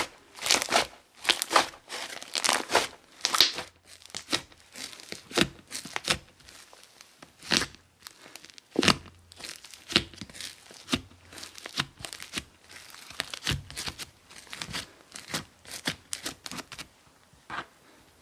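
Sherbet slime being squeezed and stretched by hand, giving rapid crisp crackles and crinkly pops, several a second, that thin out near the end.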